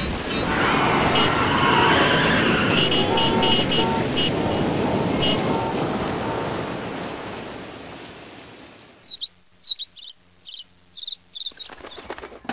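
Storm wind on an animated film's soundtrack, loud at first and fading away over about eight seconds. Then small birds chirping, a string of short high chirps.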